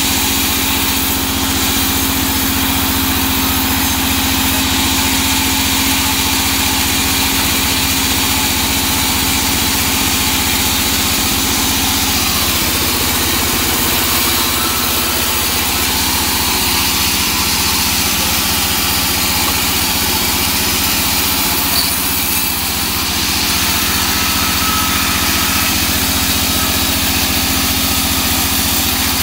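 Large sawmill band saw running steadily, its blade cutting lengthwise through small teak logs.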